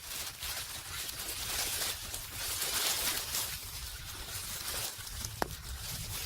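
Rustling, crinkling and scraping of soil and small grow bags of turmeric being handled and pulled apart by hand, with one brief sharp tick about five and a half seconds in.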